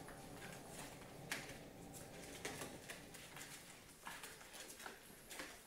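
Newborn puppies suckling at their mother's teats: faint, irregular wet smacking clicks.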